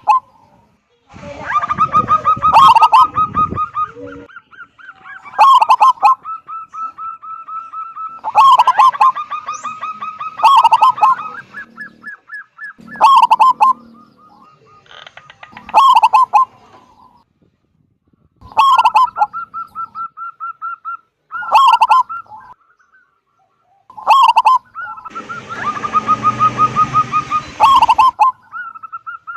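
Zebra dove (perkutut) singing: a loud staccato cooing phrase every two to three seconds, with fast trilled coos running between phrases. A burst of rushing noise sits under the calls about 25 seconds in.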